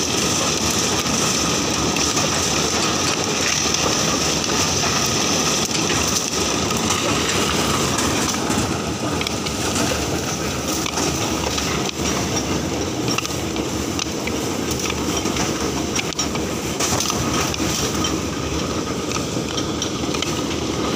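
Coconut dehusking machine running steadily as coconuts go through its rollers, a dense mechanical noise with a steady high whine. Scattered short knocks sound throughout.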